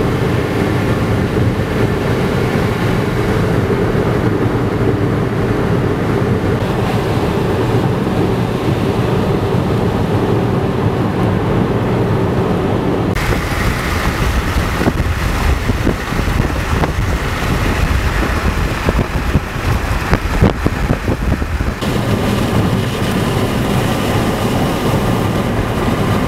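Steady road noise inside a moving car: a low hum of engine and tyres on wet pavement. About halfway through, a brighter rushing of wind joins in, with gusty buffeting for several seconds before it settles.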